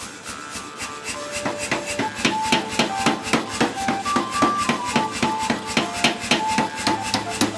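Power hammer pounding a glowing hot steel bar in rapid, even blows, about five a second, getting louder about two seconds in. Background music plays over it.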